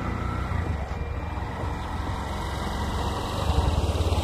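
Motorcycle engine running as the bike rides up toward the listener, a steady low throb that grows louder near the end as it comes close.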